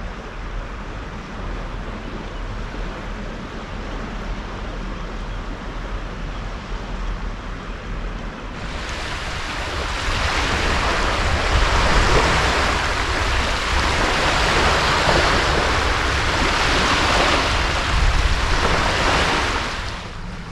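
Estuary wind and water: a steady rushing noise with a low rumble of wind on the microphone. It grows louder and brighter about nine seconds in.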